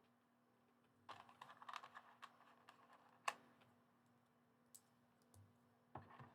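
Faint clicking and rattling of small plastic building-set pieces being handled and fitted together: a cluster of light clicks about a second in, one sharper click about three seconds in, then a few scattered ticks, over a faint steady hum.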